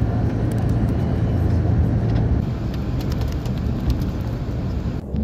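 Engine of a coach bus running with a steady low hum. The sound cuts off suddenly near the end.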